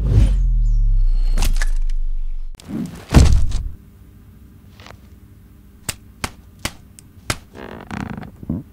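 Added cartoon sound effects: a loud, deep falling tone that cuts off after about two and a half seconds, a sharp hit just after, then a series of four quick, light taps.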